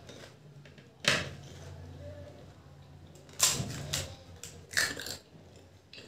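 Crisp golgappa (pani puri) shells cracking and crunching, three sharp crunches about one, three and a half and five seconds in.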